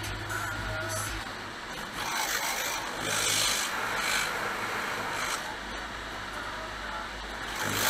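Automatic car wash heard from inside the car: water spray and soft cloth wash strips rubbing and swishing across the windshield, swelling louder between about two and five seconds in.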